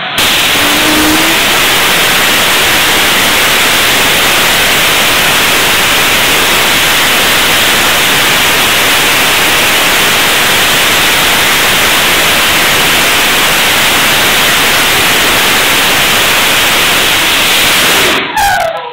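BPM5 liquid-fuel rocket engine firing at about 5 kN thrust: a loud, steady rushing noise of the exhaust that starts at ignition and cuts off abruptly near the end at shutdown, with a brief falling tone as it dies away.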